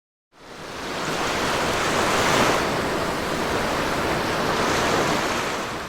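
Ocean surf: waves washing in, with two swells of noise a couple of seconds apart, fading in at the start.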